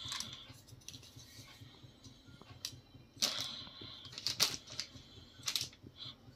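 A scattered series of short clicks and scrapes, the loudest a little past the middle, as fafda dough is pressed and worked by hand on a kitchen slab.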